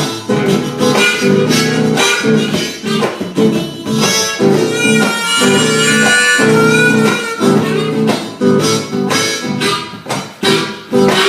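Instrumental break in a live acoustic blues-country song: rhythmic strummed acoustic guitar with a sustained, reedy wind-like lead melody over it.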